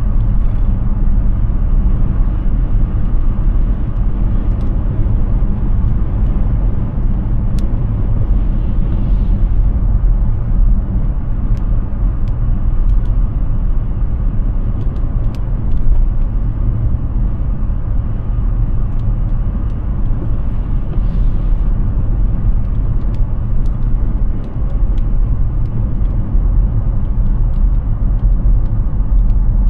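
Steady low road rumble of an electric Hyundai Ioniq 6 driving at speed: tyre and wind noise with no engine note.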